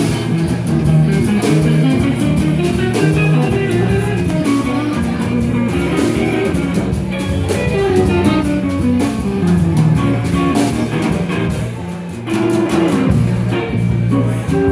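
Live jazz combo playing: electric guitar carrying a melodic line over electric bass and a Gretsch drum kit with steady cymbal work. The music dips in loudness briefly about twelve seconds in.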